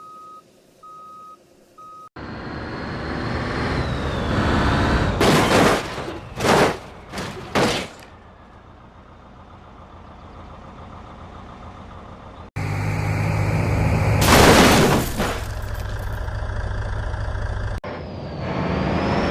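Bus or truck engine sounds in spliced segments that start and stop abruptly: first three short, even beeps, then an engine running, broken by several short, loud bursts of hiss, two close together near the middle and one near the end.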